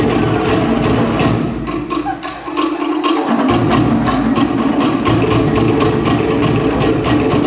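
Cook Islands drum ensemble playing a fast, driving beat on wooden slit log drums, about six or seven strikes a second, over a large bass drum. The bass drops out for about a second and a half around two seconds in, then the full beat returns.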